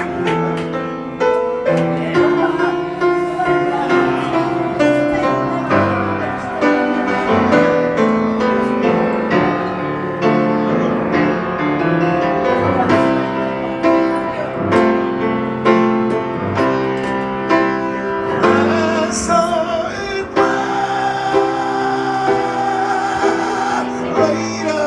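Music led by a keyboard, with struck chords and held melody notes running on steadily.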